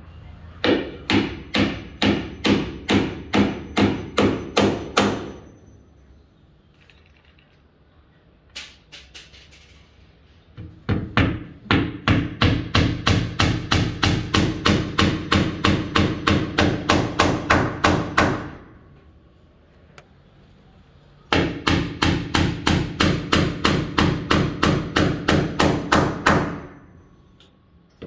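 Hammer driving nails into wood in three long runs of rapid, even blows, about three a second, each ringing briefly. A couple of lighter single taps fall between the first and second runs.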